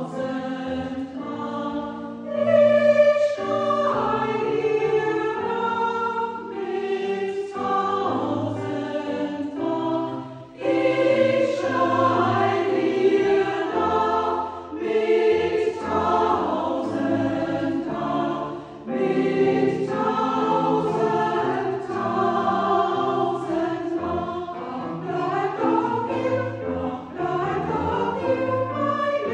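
Mixed church choir singing a Baroque sacred song in German, phrase by phrase with short breaks between phrases.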